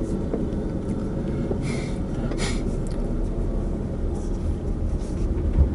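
Steady low road and engine rumble inside the cabin of a 2005 Honda Civic 1.7L on the move, with two brief hissing swishes around two seconds in. Its newly replaced front wheel bearing no longer growls.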